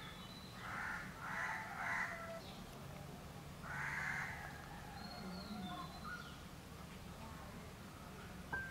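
A crow cawing three times, about one, two and four seconds in, with small birds chirping thinly in between.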